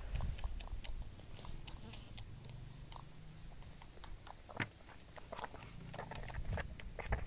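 Dog grooming itself, licking and nibbling at its own fur: a run of small, irregular wet clicks and smacks from its mouth.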